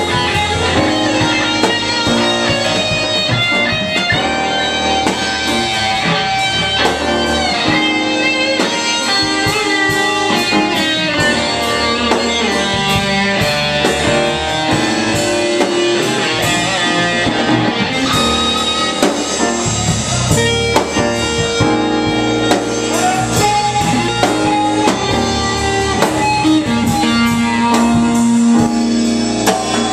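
Live band music led by a Stratocaster-style electric guitar playing single notes and bends, with a drum kit underneath.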